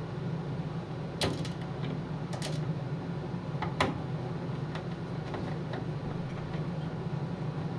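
Sharp metal clicks and lighter ticks of screws and a screwdriver against the PC case and motherboard as the motherboard is screwed in, three louder clicks in the first four seconds. A steady low hum sits underneath.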